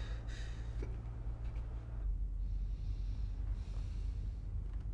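Heavy breathing and sniffing over a low, steady room hum, which shifts about two seconds in.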